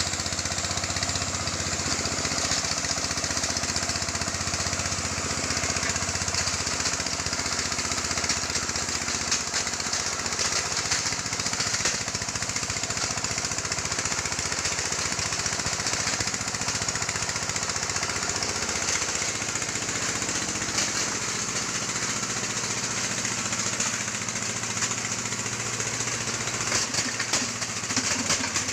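Stone-grinding mill for gold ore running steadily: a low mechanical drone under a dense, continuous clatter.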